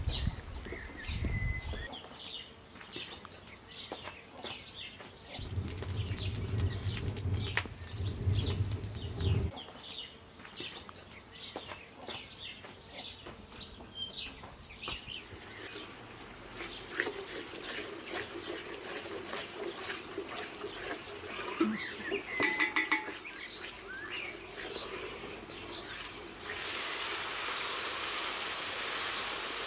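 Small birds chirping over and over, with a low rumble and a few knocks partway through. Near the end a steady hiss starts: sugar syrup boiling hard in a pan as a wooden spoon stirs it.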